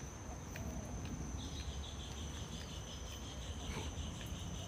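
Insects calling: a steady high-pitched buzz, joined about a second and a half in by a fast pulsing trill that stops near the end, over a low rumble.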